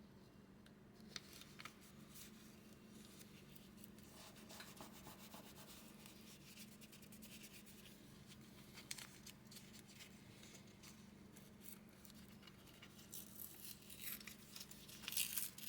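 Faint scratching and rustling of paper being worked by hand, with louder crinkling near the end.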